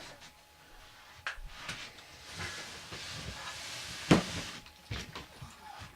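Dolls being handled and set down: a rustling noise through the middle and a few light knocks and clicks, the loudest knock about four seconds in.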